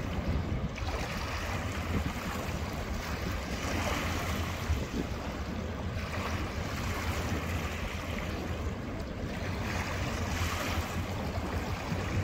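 Wind buffeting the microphone over the rush of river water, swelling twice in gusts.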